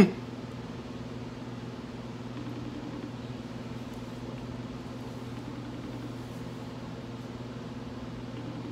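Steady low electrical hum from a running ceiling fan and light fixture, with two faint short tone patterns a few seconds apart.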